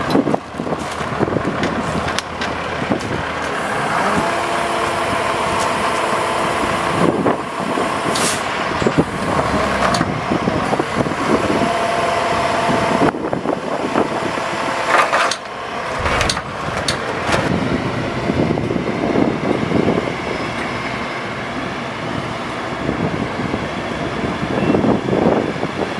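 Bucket truck's International DT466 diesel engine running, with a steady hydraulic whine as the Altec outriggers and boom are worked and occasional sharp clunks. The whine is held from about four seconds in to about thirteen.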